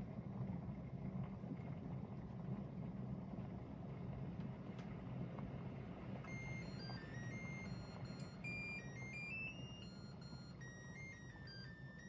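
Zojirushi electric kettle with 800 ml of water at a full boil, a steady rumbling hiss. About six seconds in, the kettle starts an electronic melody of short stepped beeps: its signal that the water has boiled.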